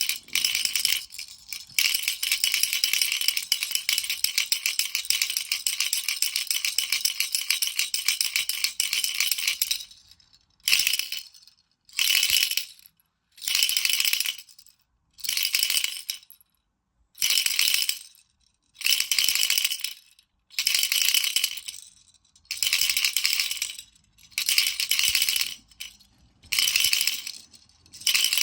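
Baby rattle shaken steadily for about ten seconds, its beads rattling in a bright, high-pitched wash. Then it is shaken in short bursts, each under a second, about every second and a half.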